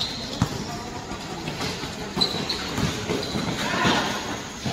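Basketball game play on a court: a thump about half a second in and two short high squeaks a little past two seconds, over steady background crowd noise.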